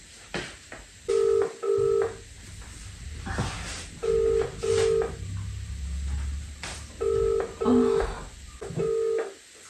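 British telephone ringing tone heard through a mobile phone's speaker: the double 'brr-brr' repeats about three times while the call rings out, waiting to be answered.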